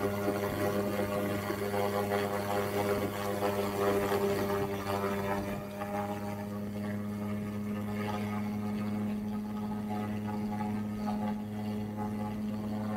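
A steady low hum with a constant pitch and overtones above it, unbroken throughout.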